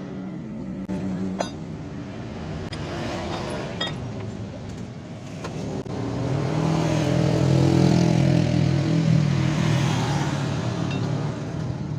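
A motor vehicle engine running, its hum growing louder about six seconds in, with a few sharp clicks in the first half.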